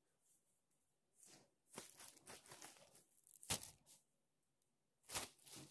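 Rustling and scraping from the camera being handled and set down, with a sharp knock about three and a half seconds in and another sharp rustle about five seconds in.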